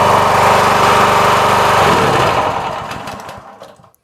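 Towable backhoe's engine running steadily, then shut off a little under two seconds in, spinning down and fading out over the next two seconds.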